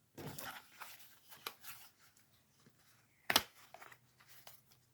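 Packaging rustling and crinkling as a pair of wireless headphones is lifted out and handled, with one sharp click a little over three seconds in.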